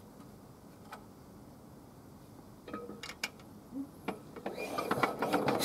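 A few scattered clicks and knocks, then a little over four seconds in the Kubota KND6C single-cylinder stationary engine starts: a fast run of knocks that grows louder as it fires and picks up speed.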